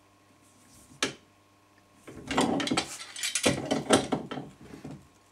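A single sharp click about a second in, then about three seconds of rapid metallic clicking and rattling as a wrench and steel pipe fittings are handled at a freshly tightened threaded joint.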